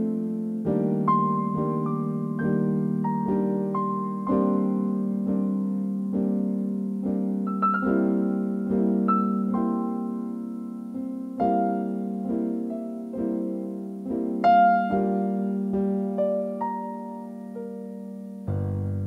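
Solo piano music: a slow melody over chords, each note struck and left to ring and fade.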